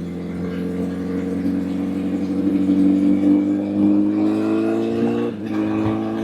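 Honda CBR1000 inline-four motorcycle engine pulling under way, its pitch rising slowly as it accelerates, with a brief break about five seconds in, a gear change, before it runs on steadily.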